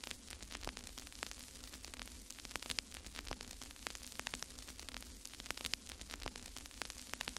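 Faint crackling static: irregular clicks and pops over a steady low hum and hiss.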